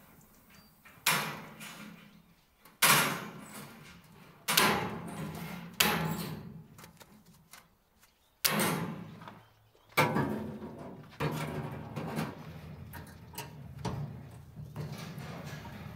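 Welded wire mesh clanking and rattling as it is cut and bent with hand tools. About seven sharp metallic hits come a second or two apart, each with a short jangling decay, followed by weaker ones near the end.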